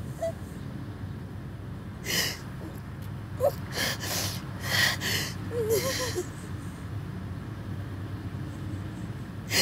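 A woman crying: several sharp gasping sobs between about two and six seconds in, with two short wavering whimpers among them, then a lull. A steady low rumble runs underneath.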